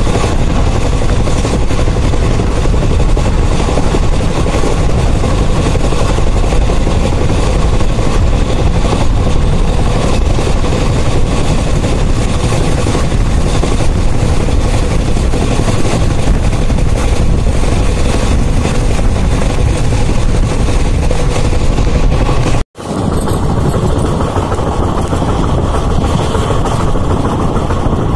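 Passenger train running at speed, heard from inside the coach: a loud, steady rumble and rush of wheels on the rails and air. About three-quarters of the way through the sound cuts out for an instant, then resumes a little duller.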